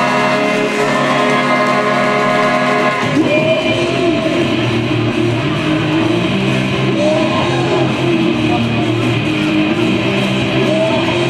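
Rock music with guitar and a singing voice. Held chords give way to a fuller guitar part with singing about three seconds in.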